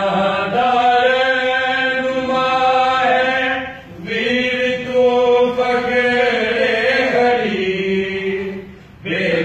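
A noha, a Shia mourning lament, chanted unaccompanied in long held melodic phrases, with short breaks about four seconds in and just before the end.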